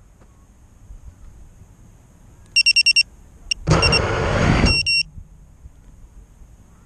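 FPV quadcopter beeping five times in quick succession, then its motors and propellers spinning up in a short burst of about a second, followed by two more beeps.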